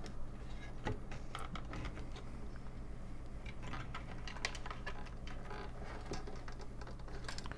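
Scattered light clicks and taps from hands handling an opened computer power supply's metal case and wiring, over a steady low hum.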